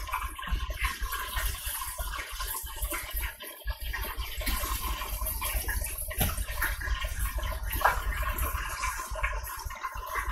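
Electric deep fryer with the lid closed, its hot oil bubbling and sizzling in a steady crackling hiss as chicken fries, with a couple of brief handling sounds near the middle.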